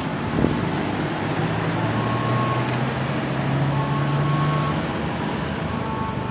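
Road traffic noise, with a large vehicle's engine running and slowly rising in pitch as it pulls away. There is a brief sharp sound about half a second in.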